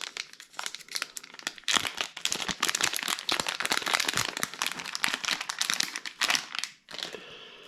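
Packaging crinkling and crackling, dense and irregular, as a package is opened and its contents handled. The crinkling stops about seven seconds in.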